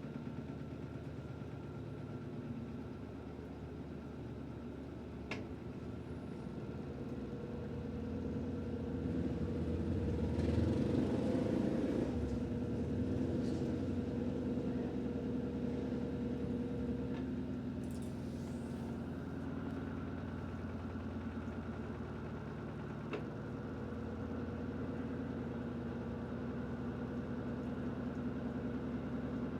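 Electrolux LED14 washing machine in its spin cycle: a steady motor hum with the drum turning, swelling louder about ten seconds in and then easing back a little.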